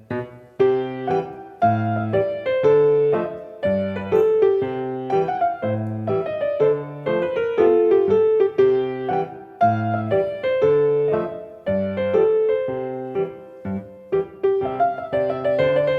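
A piano being played: a continuous run of struck notes, with bass notes about once a second under repeated chords and a melody in the middle register.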